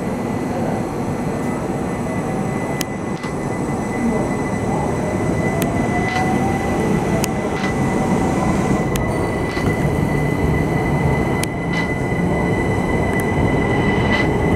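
Southern Class 377 Electrostar electric multiple unit pulling out past the platform: a steady rumble of wheels and running gear under a constant high tone, with a faint rising whine through the middle as it gathers speed, and scattered sharp clicks.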